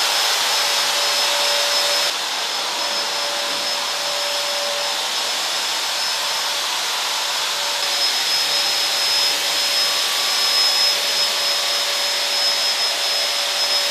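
Handheld electric disinfectant fogger running steadily, its blower motor giving a continuous hiss with a high whine as it sprays mist. The level drops slightly about two seconds in.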